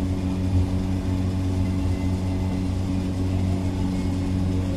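A steady low machine hum, even in level throughout, made of several held low tones with no knocks or strokes.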